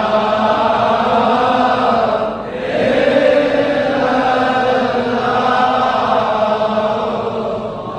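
A man's voice chanting Sufi dhikr in long, drawn-out phrases, dipping briefly about two and a half seconds in and again near the end.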